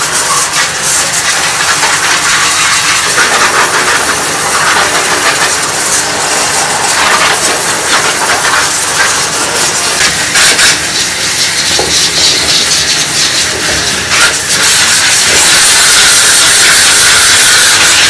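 A jet of water from a hose nozzle spraying against the inside of a top-loading washing machine's stainless steel tub, rinsing it out as a steady hiss with uneven spatter. It gets louder and steadier about fifteen seconds in.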